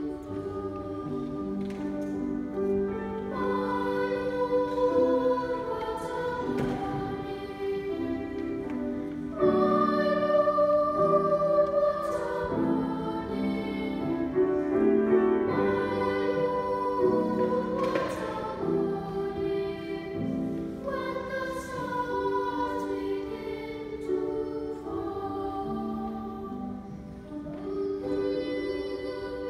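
Boys' choir singing, several voices holding sustained notes together.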